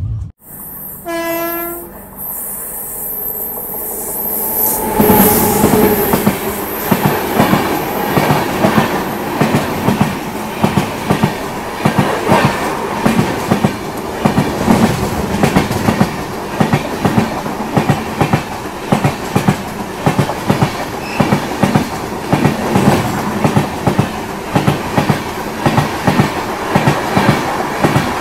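Two trains crossing on adjacent tracks: a train horn sounds briefly about a second in. Then, from about five seconds, comes the loud, continuous clatter of a passing passenger train's wheels over the rail joints.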